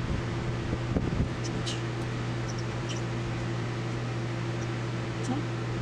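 Electric fan running with a steady hum. A few faint light clicks from small plastic calculator buttons being handled and fitted.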